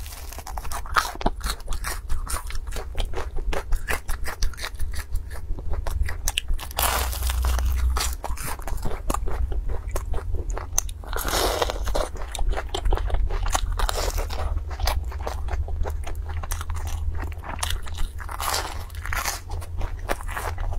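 Close-miked biting, crunching and chewing of crispy Chinese fried dough sticks (youtiao): many sharp crackly crunches, with a few louder bites along the way.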